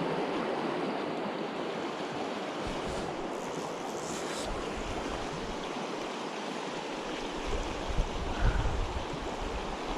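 Small creek running high with spring snowmelt: a steady rush of water. A few low thumps near the end.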